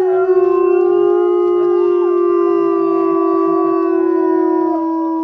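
Timber wolf howling: one long, steady held howl that rises slightly at first and begins to fall in pitch right at the end.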